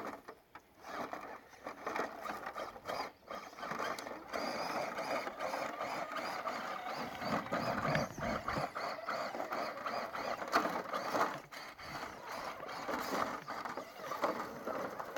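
Small electric motor and gear drive of an RC scale rock crawler whining as it climbs, with tyres scrabbling and crackling over dirt and rocks.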